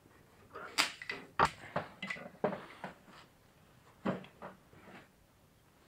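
A run of sharp, irregular knocks and clatters, bunched in the first three seconds with one more about four seconds in, like hard objects being handled and set down.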